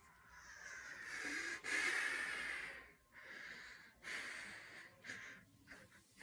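A person breathing heavily behind a plastic hockey mask: one long hissing breath of about two and a half seconds, then several shorter ones.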